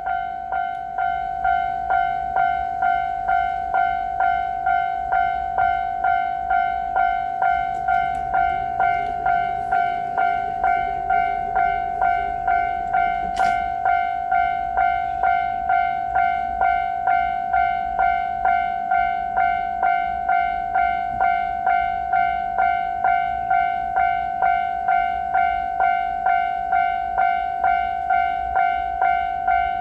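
Japanese railroad crossing alarm ringing its electronic 'kan-kan' bell, an even repeating tone of about three strokes every two seconds, warning that a train is coming.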